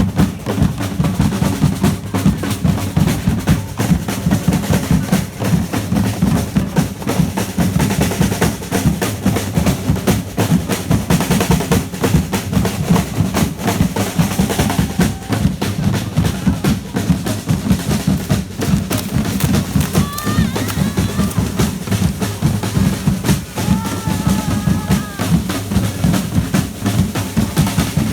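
Street drum band playing a fast, continuous drum-roll beat on snare and bass drums, with voices in the crowd.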